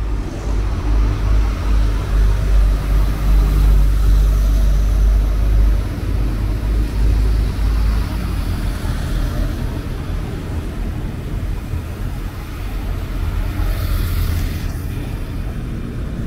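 Low, steady rumble of a train running through the station, loudest in the first six seconds and then easing, with a short hiss about fourteen seconds in.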